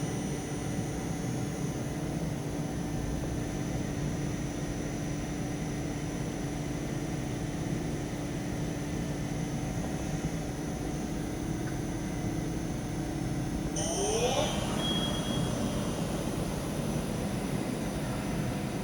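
Doosan PUMA 3100 ULY CNC lathe running: a steady machine hum with a constant tone. About 14 seconds in, a brief rising whine and some high-pitched tones come in, after which the hum carries on at a lower tone.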